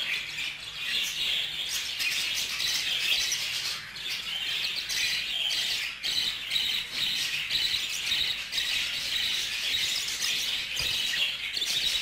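Budgerigars chattering with a steady, dense run of high chirps.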